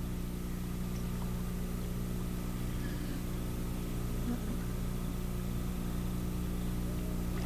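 Steady low machine hum of several unchanging tones, with a few faint small sounds over it.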